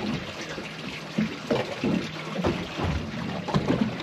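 Water sloshing and splashing against a boat's hull in irregular gushes.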